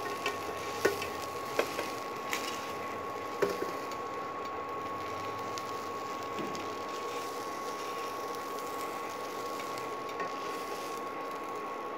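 Induction cooktop running: a steady hiss with a constant high whine, while pav buns toast in butter on a tawa on it. A few light clicks in the first few seconds.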